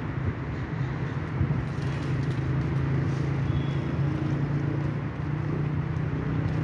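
Steady low outdoor rumble with no distinct events standing out.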